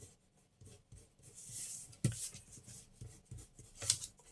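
Faint paper handling: a soft rub or swish of paper with two light taps on the work surface.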